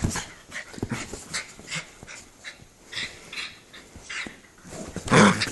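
Small dog growling in play as it mouths and paws at a hand, in a run of short rough bursts, with a louder growling outburst about five seconds in.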